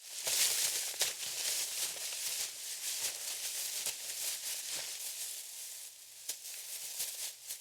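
Footsteps through dry leaf litter and brush: a steady rustling hiss with scattered sharp crackles.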